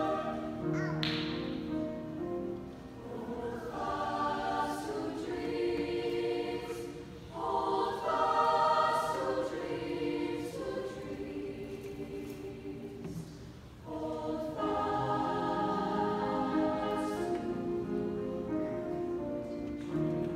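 Mixed high school choir singing in parts with piano accompaniment, in sustained phrases with short breaks about a third and two-thirds of the way through.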